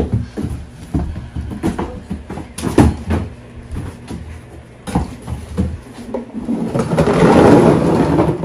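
Cardboard shipping boxes and flat cardboard trays being handled and set down: a run of short knocks, taps and scrapes, then a louder, longer scraping rustle of cardboard for the last two seconds or so.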